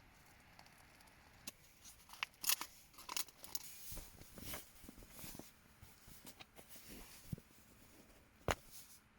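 Close handling noise: irregular rustling with scattered sharp clicks, loudest a couple of seconds in and again near the end, sounding like gear or tent fabric being moved about in a small enclosed space.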